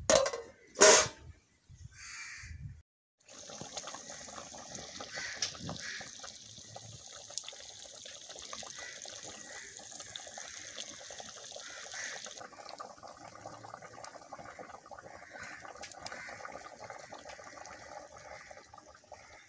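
An aluminium lid clanks down onto an aluminium cooking pot, two sharp knocks in the first second. After a short break, vegetable soup bubbles steadily at the boil in the pot over a wood fire, a continuous bubbling hiss that grows a little softer about two-thirds of the way through.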